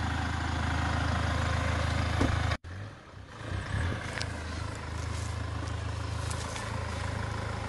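Hyundai Terracan SUV's engine running at low revs as it crawls along a dirt off-road trail, a steady low hum. The sound cuts out abruptly about two and a half seconds in, then the engine hum returns a little quieter.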